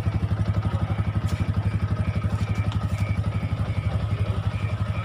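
Motorcycle engine idling steadily just after being started, a fast, even low pulse.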